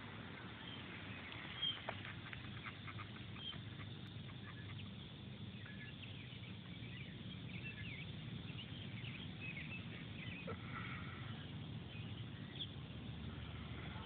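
Many short animal chirps and calls, scattered and overlapping, over a steady low rumble, with two sharp knocks about two seconds in.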